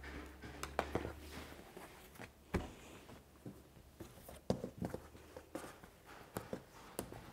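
Handling sounds at a cutting table: denim jeans rustling as they are shifted and smoothed on a cutting mat, with scattered light taps and knocks as a marker pen and a clear acrylic quilting ruler are set down on it. The sharpest knocks come about two and a half seconds in and again around four and a half seconds.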